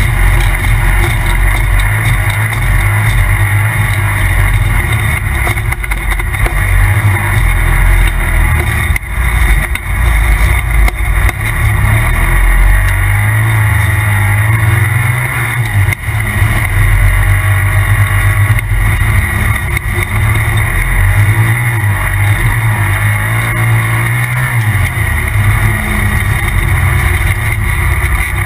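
Polaris RZR Turbo side-by-side's turbocharged engine running hard under throttle, its note swelling and easing as the throttle changes, with a few short dips.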